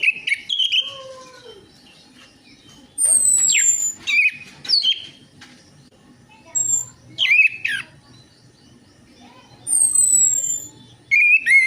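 Orange-headed thrush (anis merah) singing in separate phrases of sharp down-slurred notes mixed with thin, high falling whistles, with short pauses between the bursts.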